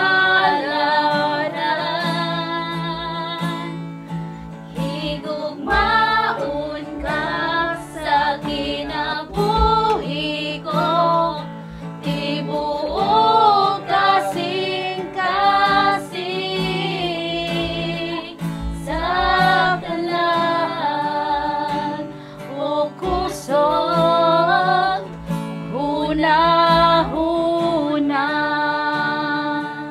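Acoustic guitar strumming chords under a female voice singing a song in phrases.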